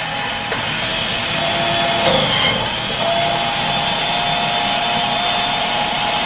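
Electric food processor motor running with its thin slicing blade, cutting apple as it is pushed down the feed tube. A steady whine with a brief dip about two seconds in.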